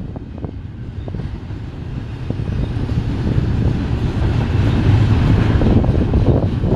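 Double-stack container train's freight cars rolling past on the rails: a steady low rumble of wheels with scattered clicks and clanks, growing louder over the second half.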